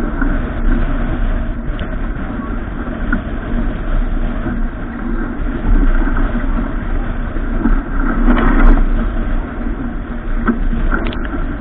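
An engine running steadily, with a brief louder burst of noise about eight and a half seconds in.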